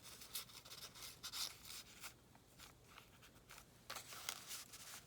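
Faint rustling and rubbing of paper being handled: a series of short, uneven scrapes as pieces are folded and slid into place.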